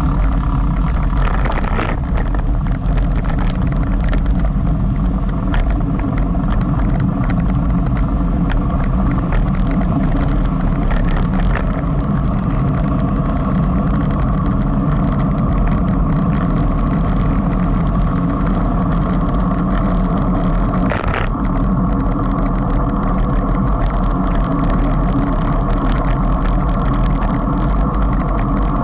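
Steady wind and road rumble on a bicycle-mounted camera's microphone while riding a road bike, heaviest in the low end. Brief knocks come about two seconds in and again about twenty-one seconds in.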